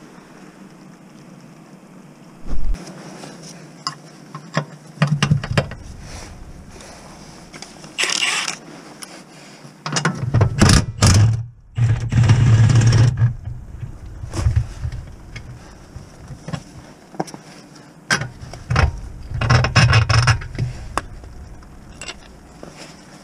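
Irregular knocks, clunks and scrapes of metal and rubber parts as a gearbox mount is worked loose and taken out from under the car, with the busiest, loudest handling in the middle and again near the end.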